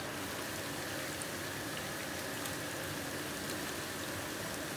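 Sliced tomatoes and onions frying in a pan, a steady, even sizzle.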